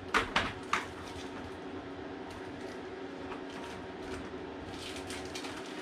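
A few light clicks and knocks of small parts and a clear plastic box being handled, mostly in the first second, over a steady low hum.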